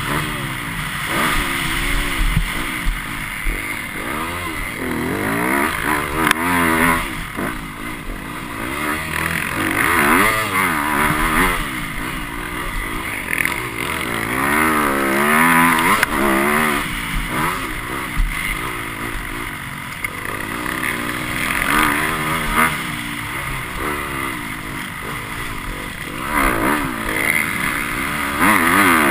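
Motocross bike engine heard on board at close range, revving up and falling back again and again as the rider accelerates out of turns and shifts gear.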